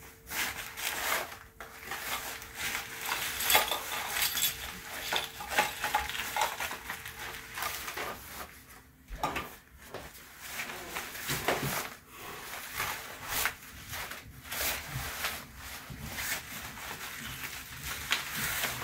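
Rummaging through a canvas tote bag by hand: the fabric rustles while small hard objects inside clink and knock together in irregular bursts.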